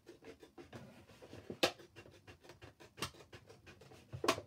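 Scissors cutting through a thin plastic milk bottle in small snips: a run of soft crunching clicks, with three sharper snaps.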